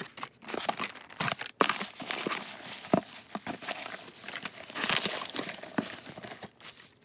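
Packing material being crumpled and rustled by hands unpacking a cardboard box, a continuous crinkling with many sharp crackles and small ripping sounds.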